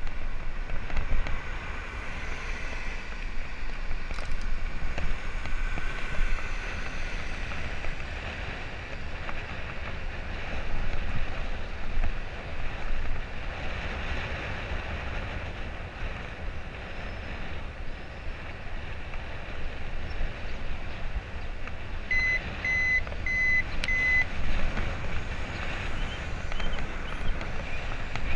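Wind buffeting the microphone of a camera riding on a moving bicycle, a steady rumbling rush with street traffic underneath. About three-quarters of the way through, four short high electronic beeps sound in quick succession.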